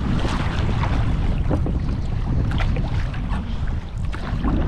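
Wind buffeting the microphone in a steady low rumble, with water splashing and sloshing around a sea kayak on the open sea.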